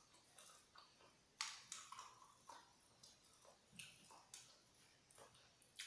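Close-up eating sounds of fried chicken being bitten and chewed: irregular crisp crunches and mouth clicks, the loudest about a second and a half in.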